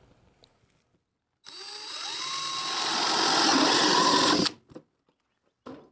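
DeWalt 20V Max cordless drill turning a 4-inch hole saw into the plastic wall of a septic distribution box to cut an inlet hole. The drill starts about a second and a half in, runs louder and rises in pitch as it cuts, and stops suddenly after about three seconds.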